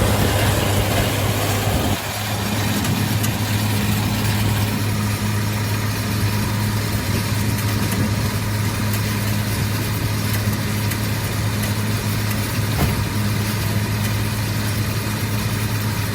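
Tractor engine running at a steady speed, a constant low hum that dips slightly about two seconds in.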